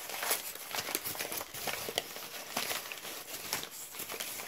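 Hands unwrapping a small wrapped item: the wrapping rustles and crinkles irregularly, with scattered sharp little crackles.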